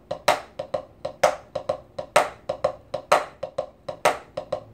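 Drumstick strokes on a practice pad in a gut-bucket shuffle pattern: an accented stroke about once a second with softer ghost strokes in between.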